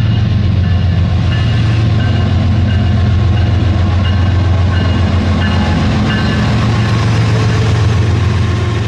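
Battery-powered Rail King toy train running along its plastic track: a loud, steady motor-and-gear hum, with short high tones coming and going over it.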